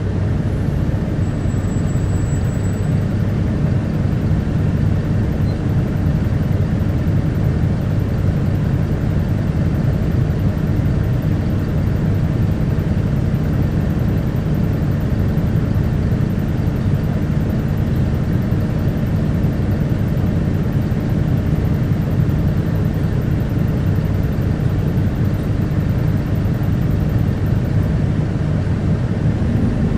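Isuzu Erga (QKG-KV290N1) city bus's diesel engine running steadily, heard from inside the passenger cabin, with a brief faint high whistle about two seconds in.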